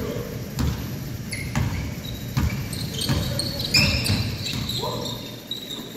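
A basketball bouncing on a hardwood gym floor several times, about once a second, with short high-pitched sneaker squeaks in the middle as players run and cut in a large, echoing gym.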